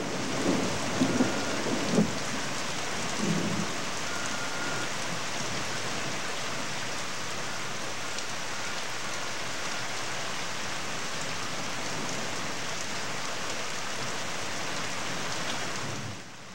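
Steady hiss of rain falling, with a few louder low bumps in the first few seconds.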